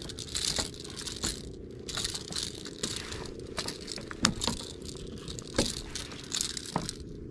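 A small barracuda flopping on wooden pier planks, making a series of sharp knocks, with rustling bursts in between.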